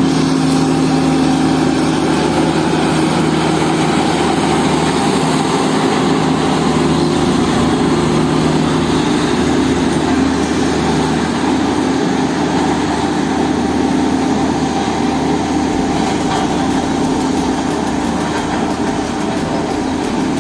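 Heavy road-building machinery's diesel engine running steadily under a constant loud noise, its low engine hum shifting slightly partway through.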